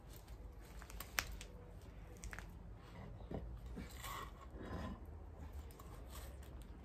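Dog lead being handled and laid down: faint clicks of its metal clip, one sharper click about a second in, and rustling around four to five seconds in.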